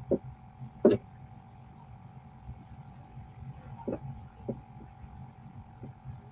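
A steady electrical hum with a few short, soft knocks, the loudest about a second in and others near four, four and a half and six seconds.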